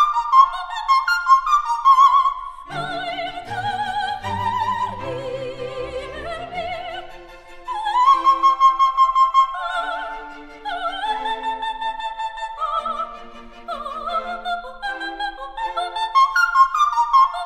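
Classical, opera-style music: a high, quick-moving melody with vibrato over a lower accompaniment.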